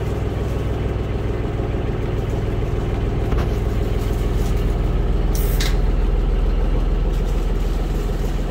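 Small wooden tour boat's motor running steadily at cruising speed, a low even drone. Two short sharp clicks come a little past the middle.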